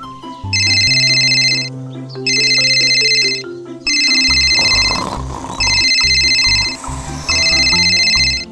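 Electronic ringing sound effect, like a phone or alarm ring, in five bursts about a second long with short gaps between them, over background music.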